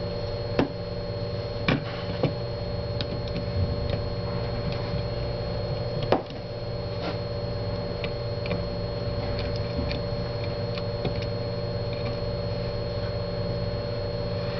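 Scattered small clicks and taps of tools and plastic parts while a BlackBerry Bold 9790 phone is taken apart by hand, over a steady electrical hum.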